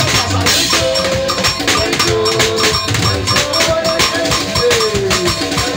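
Dance music with a fast, steady percussion beat and a melodic line over it, loud and without pauses.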